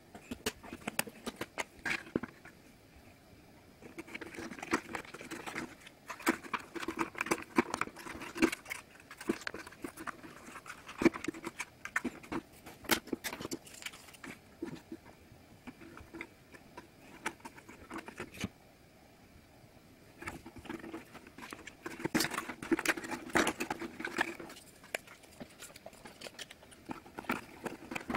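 Hands handling and slotting together the stiff die-cut pieces of a 3D model house kit: a run of light clicks, taps and scraping rubs, busy through much of the first half and again for a few seconds later on, with a quieter stretch between.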